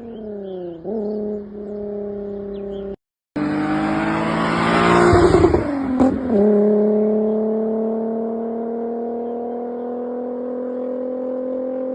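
VR6 car engine held at high revs, its pitch dropping and then settling early on. After a brief cut a few seconds in comes a loud stretch of rough engine and tyre noise, then the engine holds high revs again with its pitch slowly creeping up.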